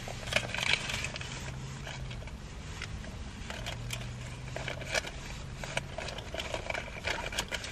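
Rustling and scattered small clicks and scrapes of hands and clothing moving, inside a car, over a faint low hum that comes and goes.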